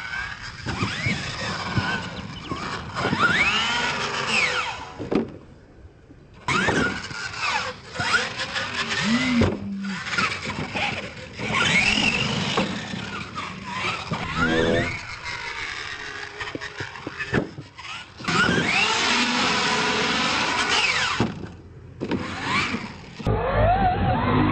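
Motor of a Grave Digger-styled R/C monster truck whining up and down in pitch as the throttle is worked hard, with short knocks as the truck lands and tumbles on dirt. The sound cuts off abruptly a few times.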